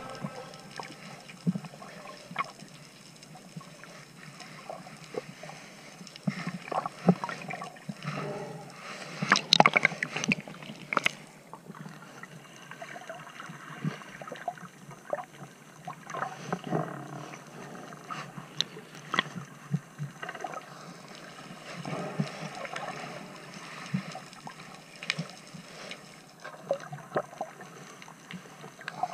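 Underwater ambience heard through a submerged camera: irregular crackling clicks and bubbling, with a denser, louder cluster of clicks about nine to eleven seconds in.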